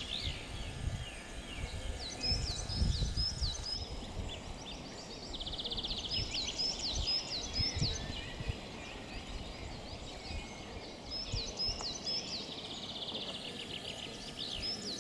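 Songbirds singing: short phrases of repeated high hooked notes, with a fast trill about five seconds in and again near the end. There is low rumbling noise underneath, mostly in the first few seconds.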